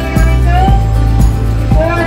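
Background music with a steady beat, about two beats a second, under a wavering melody line.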